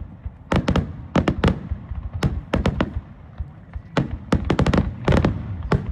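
Fireworks going off in a rapid, irregular series of sharp bangs with a low rumble between them, crowding into a dense cluster about four seconds in.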